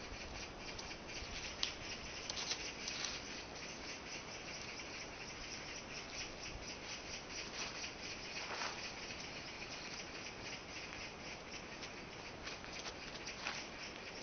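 Shoes scuffing and stepping on a dirt path over a steady crackling hiss, with a few sharper scrapes scattered through.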